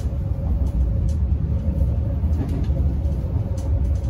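Interior running noise of a Trenitalia Blues InterCity train in motion: a steady low rumble with a faint steady whine above it.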